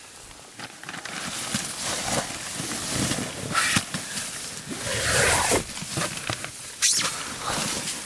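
A climber crawling into a nylon mountain tent: tent fabric and down clothing rustling and scraping, with grunts and heavy breaths of effort.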